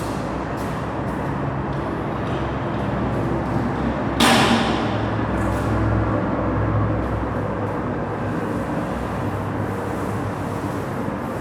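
Spray-painting equipment running steadily with a low hum, with a short, loud burst of hiss about four seconds in.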